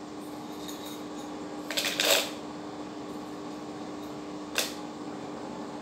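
Small stones rattling briefly inside a plastic bottle as they are shaken to wash them, a short clatter about two seconds in and a single click later, over a steady low hum.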